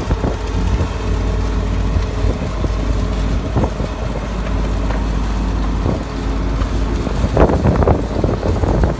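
Bulldozer engine running steadily, with a few short knocks and rougher gusts of noise near the end.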